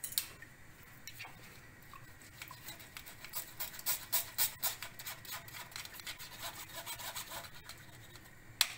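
A spoon rubbing and scraping against a wire-mesh sieve, pressing a flour-and-water slurry through it in faint, irregular strokes. Near the end the strokes become louder and quicker.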